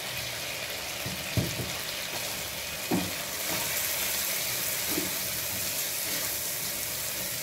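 Chickpeas and chicken frying in spiced oil in a nonstick wok: a steady sizzle while a slotted spatula stirs them, with a few knocks of the spatula against the pan.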